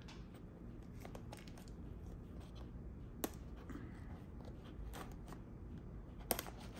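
Pocket knife blade cutting packing tape on a small cardboard box: faint scratching and scraping with scattered light clicks, two sharper ones about three seconds in and near the end.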